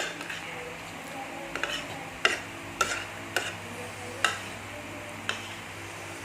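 Spoon clinking and scraping against a bowl while eating, about seven short sharp clicks spread unevenly over a few seconds, over a steady low hum.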